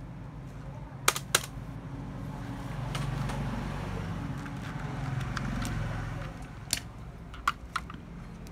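A few sharp clicks of hands handling computer hardware on a workbench, two close together about a second in and three more near the end, over a steady low hum.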